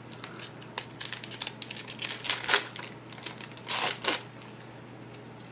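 Foil trading-card pack wrapper being peeled open and crinkled by hand: scattered small clicks and rustles, with louder crinkles about two and a half and four seconds in.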